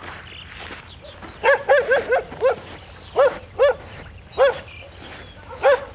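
Feral dog barking: a quick run of five short, high barks, then four more at wider intervals.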